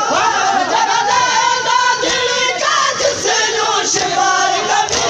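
Crowd of mourners chanting a Shia noha lament together, with rhythmic chest-beating (matam) slaps about once a second.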